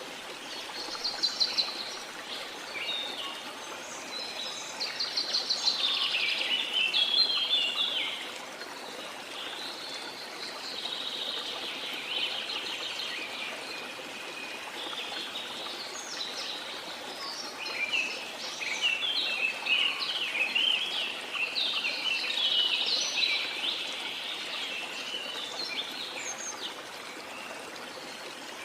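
Steady rush of waterfall water with birds singing over it, trills and chirps coming in flurries, busiest in the first third and again past the middle.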